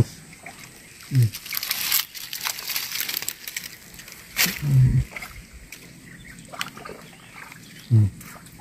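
Hands squelching and sloshing in wet mud and shallow water while groping for fish under a log. Three short low grunts or voice sounds come about a second in, about midway and near the end.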